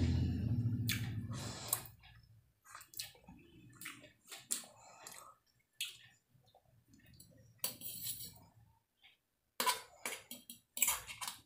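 Close-miked chewing for about the first two seconds, then scattered clicks and short scrapes of a metal fork against a steel plate, busiest near the end.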